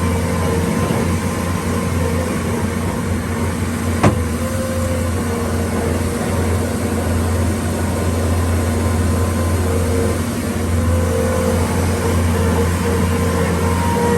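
Bobcat S550 skid steer loader's diesel engine running steadily, with a higher whine that comes and goes over it. A single sharp click sounds about four seconds in.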